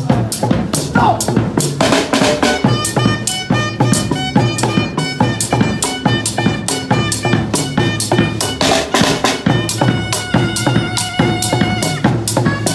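Music played on a drum kit built onto bicycles: a steady, busy beat of snare and bass drum strokes, over a pitched melody and bass line.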